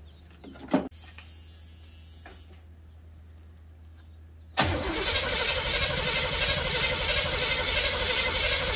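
A single sharp knock about a second in. Then, about four and a half seconds in, the starter cranks the 1979 Trans Am's 6.6-litre 403 V8 steadily without it firing, since there is no fuel in it.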